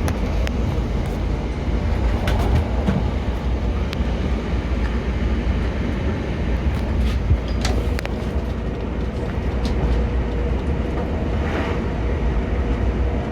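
Passenger train running, heard from inside the carriage: a steady low rumble with a steady hum and a few scattered clicks from the wheels and track.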